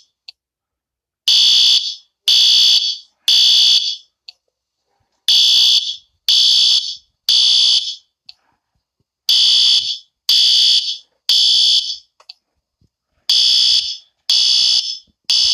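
Fire alarm sounding: loud, high-pitched beeps in repeating groups of three about a second apart, each group followed by a short pause. This is the three-beep pattern used as a fire-evacuation signal.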